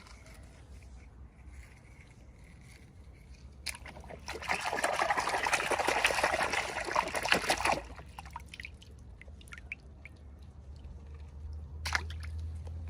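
Liquid trickling and pouring for about four seconds, starting a few seconds in, with a single sharp tap near the end.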